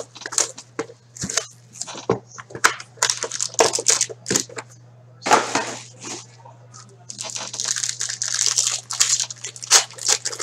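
Foil trading-card pack being crinkled and torn open by hand, with irregular crackling rustles that grow dense in the last few seconds; a steady low hum underneath.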